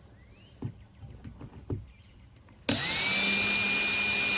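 A few light handling clicks and knocks, then an electric drill starts suddenly and whines up to speed within a fraction of a second, running steadily at full speed while a hole is started in the RV screen door frame.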